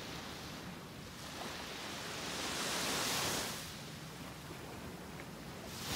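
Small waves breaking and washing up on a sandy beach. One wave swells up about two seconds in and fades a second later, and the next arrives at the very end.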